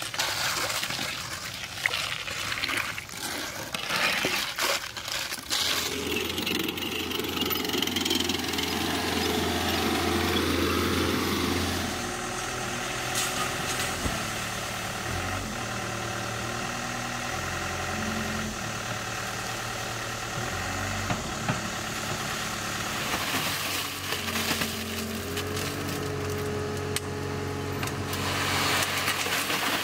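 Scraping of a screed board through wet concrete along a steel rail for the first few seconds. Then the diesel engines of a CAT tracked skid steer and a mini excavator run steadily while the machines work, with the engine note stepping up and down under load.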